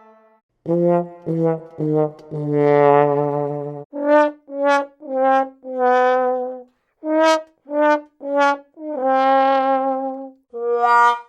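Cartoon fail sound effect on a brass instrument: a descending 'wah-wah-wah-waaah' of three short notes and a longer held one. Then a string of about nine short separate notes, one held longer near the end.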